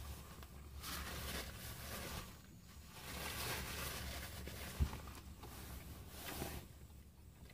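Paper rustling in several short spells as a paper napkin is handled and wiped across the mouth while eating, over a steady low hum. A single soft thump comes just before five seconds.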